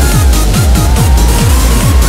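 Electronic dance music, techno-style, with a steady kick drum beating several times a second under a gliding synth melody.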